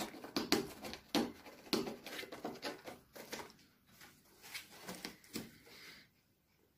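Oriental shorthair cat clawing and biting at the seam between the flaps of a closed cardboard box, trying to pry it open: a string of irregular scratches and scrapes on the cardboard, several a second, stopping near the end.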